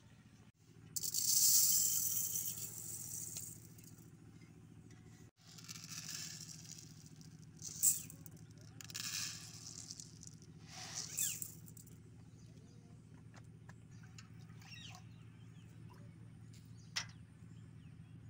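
Dry urad dal poured from a plastic bowl into an aluminium pot, the grains rattling and hissing against the metal in several pours, the longest near the start.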